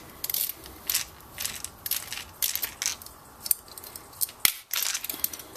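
Screwdriver working the float bowl screws on a 2001 KTM 125 SX carburetor, making a run of irregular sharp metallic clicks and scrapes.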